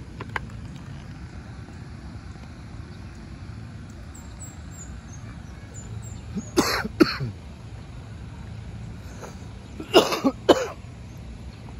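A person coughing in two short bouts, one about six and a half seconds in and one about ten seconds in, over a steady low rumble.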